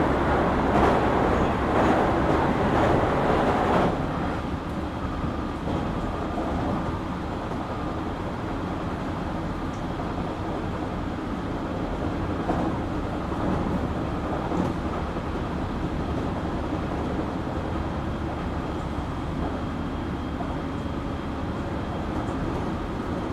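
Interior running sound of a JR Kyushu 817 series electric multiple unit: wheels on rail and motors rumbling loudly, then dropping suddenly about four seconds in to a quieter, steady rumble with a faint whine. The unit is one the recordist calls an odd-sounding car, its sound like that of a Keio 7000 series.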